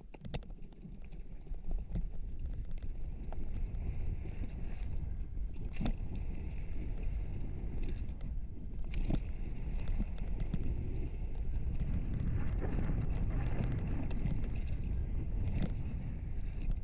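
Mountain bike descending a gravel trail: wind noise on a helmet-mounted camera and tyre rumble, growing louder over the first couple of seconds as the bike gathers speed. Frequent sharp knocks and rattles come through on top, from the bike over rough ground and a full-face helmet that rattles badly.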